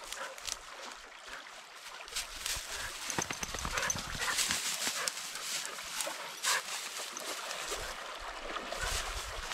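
A dog whimpering now and then.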